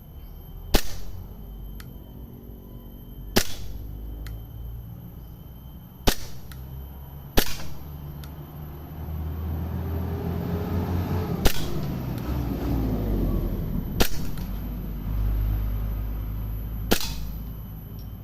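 An airsoft gun firing seven single shots, each a sharp crack, a few seconds apart at an uneven pace. A low rumble swells in the background through the middle.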